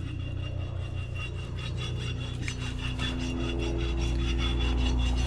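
Grain auger running: a steady machine drone with a raspy, scraping grind over it, growing slightly louder about halfway through.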